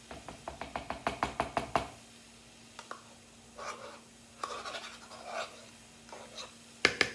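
Plastic measuring cup knocking against a plastic mixing bowl and a utensil scraping yogurt out of the cup. First comes a quick run of about ten knocks, growing louder, over the first two seconds. Softer, scattered scrapes follow, with one sharp knock near the end.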